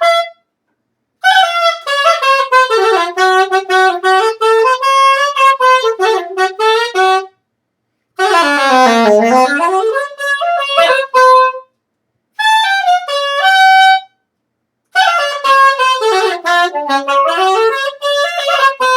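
A solo wind instrument with a reedy, saxophone-like tone played in four loose phrases separated by short pauses, the pitch wandering and bending, with one deep swoop down and back up near the middle.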